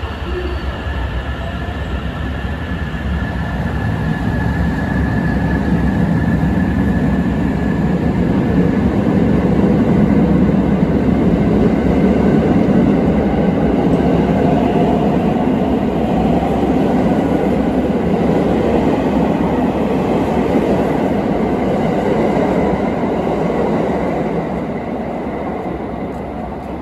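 A JR West limited express electric train pulls out of the platform. Its running noise builds as it gathers speed past, is loudest about halfway through, then fades near the end as the last cars leave.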